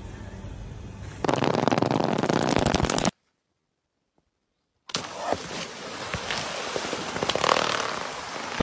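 A loud stretch of hissing noise that stops dead, then after a short silence water gushing out of a split inflatable pool, with a sharp knock as it begins.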